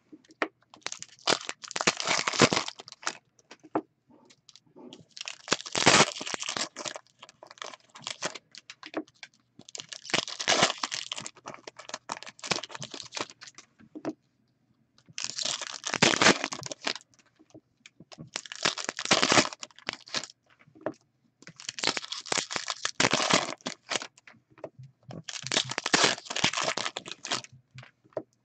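Hockey card pack wrappers being torn open and crinkled by hand, in about eight separate bursts of crackling with short pauses between them.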